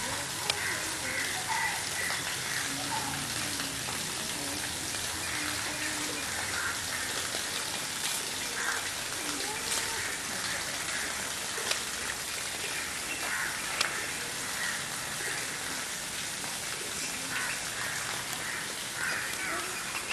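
Birds calling on and off over a steady hiss, with faint voices in the background.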